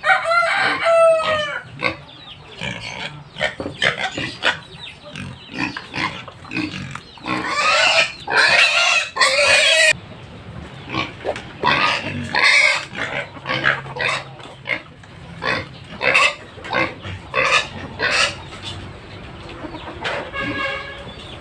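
Hungry pigs squealing in loud, irregular bursts at feeding time, with chickens clucking among them.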